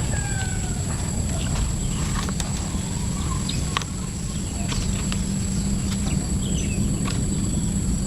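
Outdoor rural ambience: a steady low rumble under a constant high-pitched whine, with a few short bird chirps and scattered light clicks.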